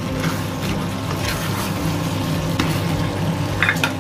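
Stew being stirred in a stainless steel skillet with a spatula: a scattering of scrapes and clinks of the utensil against the pan over a steady low hum, with a brighter clink near the end.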